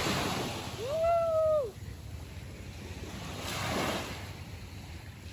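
Surf washing on the shore as a steady rushing noise, swelling with a breaking wave about three and a half seconds in. About a second in comes a single short call, held for under a second, that rises and then falls in pitch.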